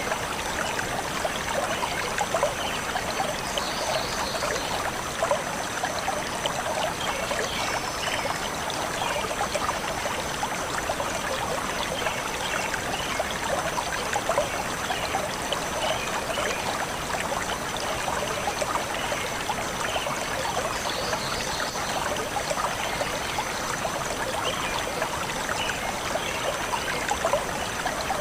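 Forest stream flowing steadily, a continuous babbling trickle of water, with a few faint bird chirps over it.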